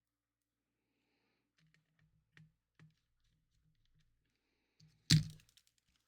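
Small console parts being handled and set down on a work surface: scattered light clicks and taps, then one louder sharp knock about five seconds in.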